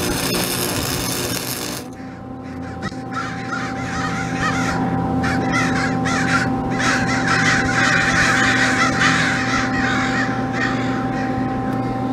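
Wire-feed welder's arc crackling for about two seconds, then cutting off. After it a flock of crows caws overhead, many calls overlapping and loudest in the middle, over a steady hum.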